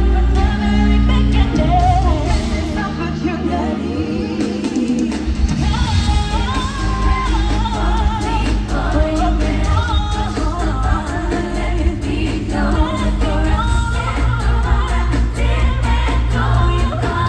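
Live pop song played loud through an arena sound system, with female vocals over a heavy bass and drum beat.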